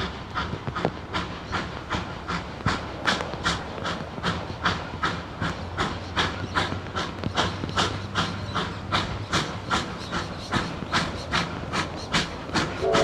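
Two Victorian Railways R-class Hudson steam locomotives (R761 and R711) working hard on the approach, their exhaust chuffing in a steady rhythm of about three beats a second. A steam whistle starts to sound right at the end.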